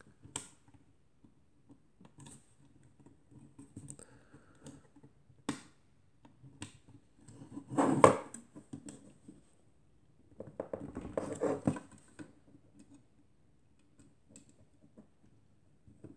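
Hands working the metal struts, lens standard and bellows of a KW Etui folding plate camera as it is pushed to fold shut: scattered clicks and scrapes of metal parts, a louder knock about eight seconds in, and a stretch of rubbing and rattling around eleven seconds. The camera resists closing, which the owner thinks may mean something is catching and blocking it.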